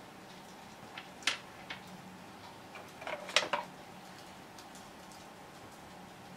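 A few light, sharp plastic clicks and taps from handling a 3D-printed plastic adjustable wrench, the loudest cluster about three and a half seconds in, over a faint steady hum.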